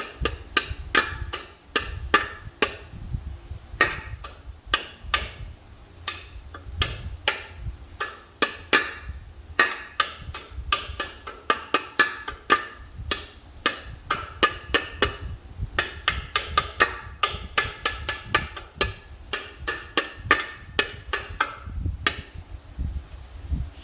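Hammer tapping a bearing into the case of an M5R1 manual transmission: a long run of sharp taps at about three a second, with brief pauses, driving the bearing home.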